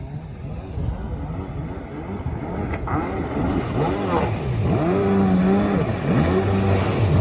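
1991 Yamaha Superjet stand-up jet ski's two-stroke engine revving under hard throttle. Its pitch rises and falls repeatedly as the rider works the throttle, and it gets louder through the second half.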